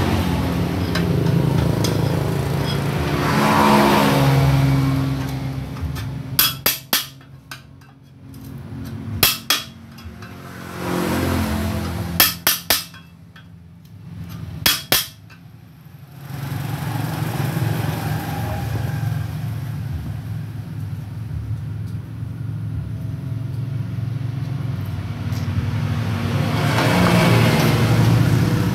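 Sharp metallic strikes in quick groups of three or four, a few seconds apart, as a steel rod is worked against the cut-open end of a chrome motorcycle muffler to gut its baffles. An engine runs steadily underneath for much of the time and swells twice.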